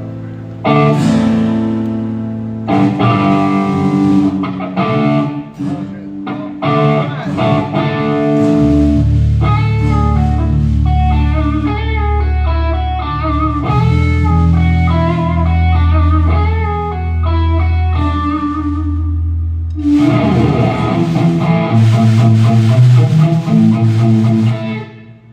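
Guitar playing. It starts with strummed chords, then a picked melody line of single notes over low sustained notes from about a third of the way in, then strummed chords again near the end before it stops.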